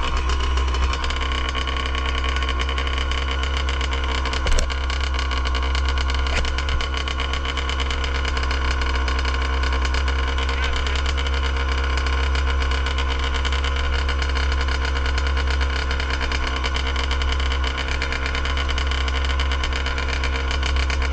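Dirt bike engine idling steadily. There is one short knock about four and a half seconds in.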